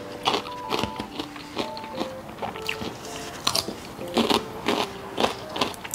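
Close-up chewing of crisp pickled radish cubes, a sharp crunch roughly twice a second, over soft background music.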